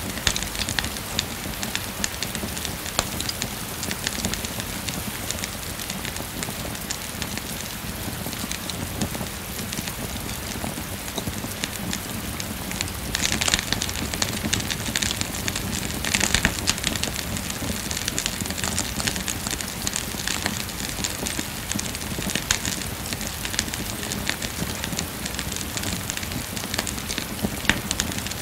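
Steady rain falling, mixed with a wood fire crackling with scattered small pops. Around the middle the hiss swells louder twice for a moment.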